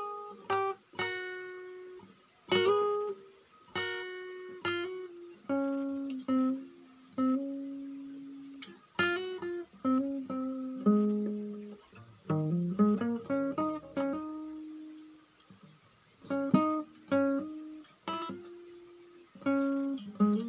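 Cutaway acoustic guitar played solo, plucked one note at a time in a slow melody, each note ringing and fading before the next. About twelve seconds in comes a quick run of rising notes.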